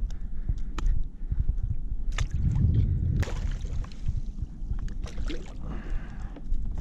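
Low rumble of water lapping against a plastic sit-on-top kayak, with wind on the microphone. Several sharp clicks and knocks come from fish and a metal stringer clip being handled against the hull.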